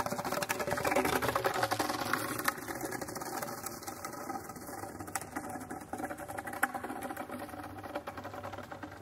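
Streetcar interior running noise: a busy mechanical rattle and hum as the car rolls slowly along, louder in the first couple of seconds and easing off as it slows to a stop.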